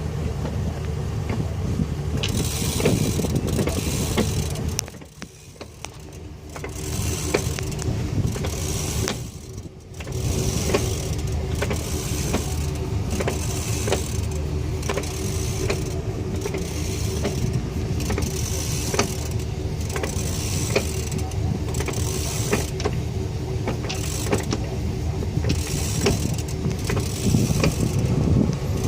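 Driveline of a 2012 Ford F-350 with the 6R140 six-speed automatic, turning on jack stands and making an odd noise: a steady hum with irregular clicks and a swish that comes back about every second and a half. The sound drops away briefly twice, about 5 and 10 seconds in.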